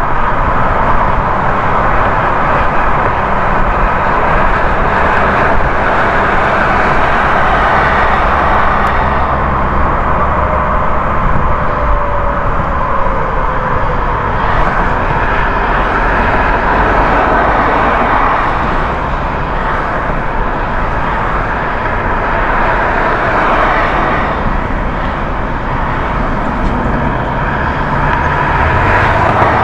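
A car driving at highway speed: a steady mix of tyre noise and engine hum.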